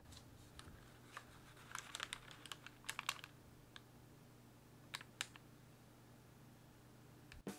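Faint crinkling and light clicks of parchment paper being handled, in a cluster about two seconds in and twice more near the end, over a low steady hum.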